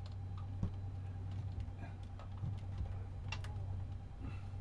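Boat's electric drive motor humming steadily, with scattered light clicks and ticks, a couple of sharper ones a little past the middle.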